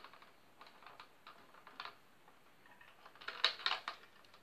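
Light plastic clicks and rattles from a Nerf Recon blaster being handled, scattered at first, then a denser cluster of clicks about three seconds in.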